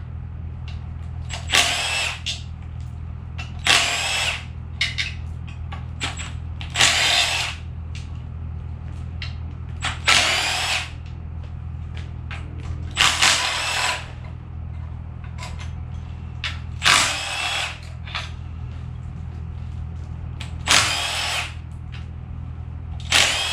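Power drill running in short bursts, about eight times, each spinning up and winding down within a second, as bolts are run out or in on an engine's oil pan. A steady low hum sits underneath.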